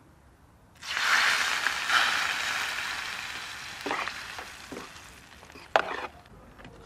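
Eggs poured onto a hot metal tray of chopped tomatoes and onions set over embers, hitting with a sudden loud sizzle about a second in that slowly dies down. As a fork and spoon stir them in, the metal utensils click and scrape on the tray a few times, the sharpest click near the end.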